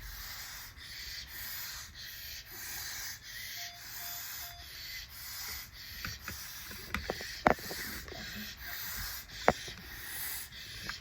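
A child breathing quickly through a tracheostomy, a rhythmic hiss swelling and fading with each breath. Three short electronic beeps from an oxygen monitor come about four seconds in, and a few sharp clicks follow later, the loudest near the middle and one more near the end.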